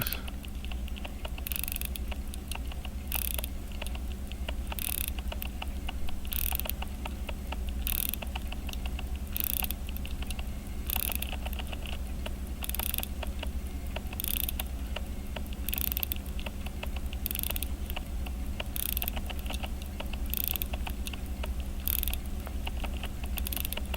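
Hamilton 992 pocket watch being wound at the crown: the winding ratchet's clicks come in repeated strokes about every second and a half, one for each twist of the crown. A steady low hum runs underneath.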